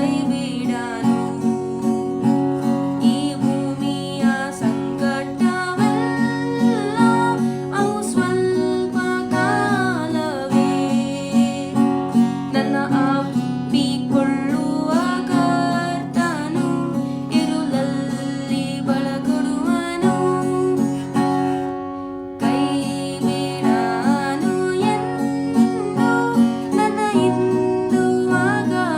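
A Kannada gospel song sung over a steadily strummed acoustic guitar, with a brief break in the sound a little past the middle.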